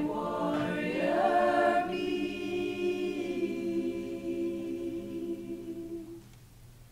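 Women's choir singing, moving into a long held chord that dies away about six seconds in.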